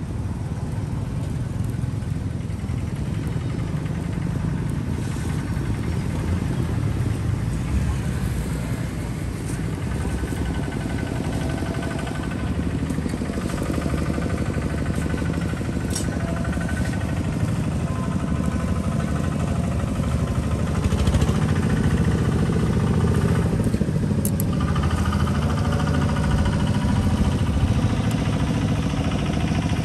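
Busy street noise: a steady low engine rumble of passing traffic with people talking in the background, getting a little louder about two-thirds of the way through.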